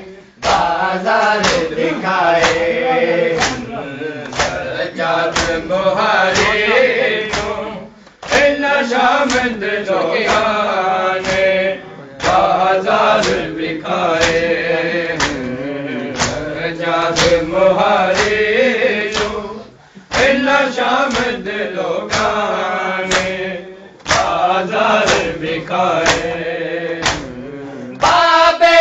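Men chanting a Shia noha (Muharram lament) together in Urdu, a lead voice with the group, over a steady beat of open-hand chest-beating (matam) slaps. The chanting breaks off briefly between lines every few seconds while the slaps keep time.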